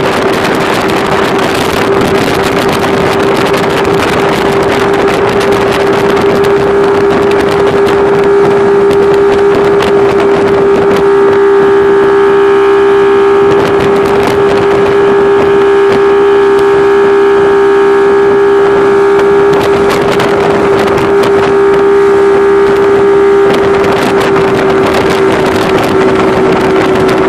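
Mercury V6 outboard motor running steadily at speed, pulling a water skier, its engine note holding one even pitch throughout. A rush of wind and spray runs beneath it.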